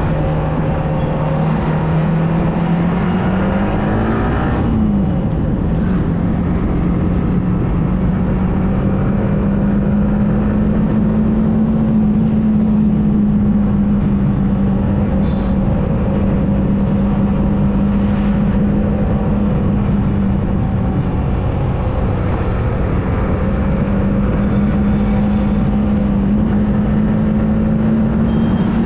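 Yamaha R15 motorcycle's single-cylinder four-stroke engine running under way. About four seconds in it revs up, then its note drops sharply as it shifts up a gear, and it holds an even note from then on, over a steady rush of wind and road noise.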